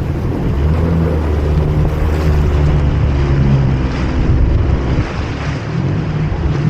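Jet ski engine running steadily, its pitch shifting up and down a little, with wind buffeting the microphone.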